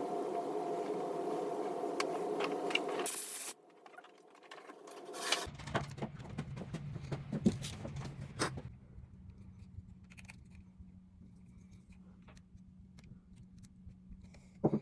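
Electric power-tool motor running steadily with a whine, cutting off abruptly a few seconds in. It is followed by scraping and clicking of the tool being handled, over a low hum.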